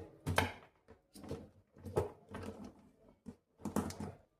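Handling noise from multimeter test leads and crocodile clips being moved and repositioned: a series of irregular clicks and light knocks with short pauses between them. The continuity buzzer is not sounding.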